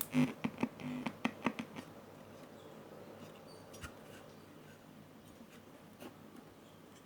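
A quick run of light clicks and scratches, like hands handling small parts and leads on an electronics bench, over about the first two seconds, then faint low room noise with a few stray ticks.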